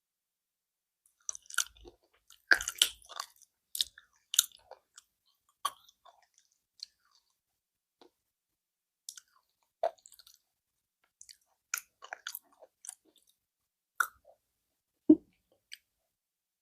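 Slate pencils being bitten and chewed close to the microphone: sharp, irregular crunches and snaps with short silent gaps between bites.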